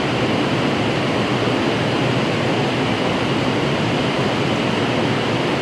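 Steady, even rushing noise of workshop background, unchanging throughout.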